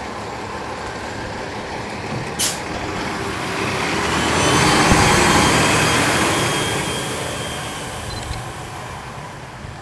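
Inside a NABI 40-SFW transit bus, heard from the rear seats: a short sharp hiss of air from the air brakes about two and a half seconds in, then the Cummins ISL9 diesel's noise swells for a few seconds and fades again, with a faint high whistle over it at the peak.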